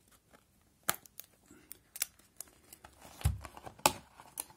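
Cardboard box being handled: scattered sharp clicks and knocks, with a dull thump about three seconds in.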